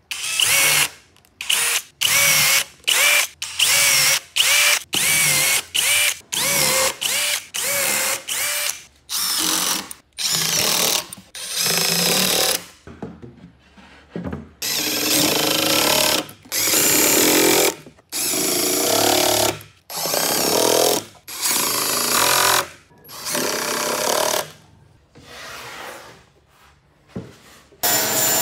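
Cordless drill with a countersink bit boring pilot holes into the edge of a pine panel, run in short bursts a little under two a second, each with a brief motor whine. Later come longer runs of the drill, and near the end a table saw starts up.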